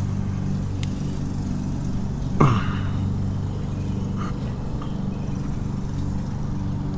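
A steady low mechanical hum, like a motor or engine running, with one brief whine that falls sharply in pitch about two and a half seconds in.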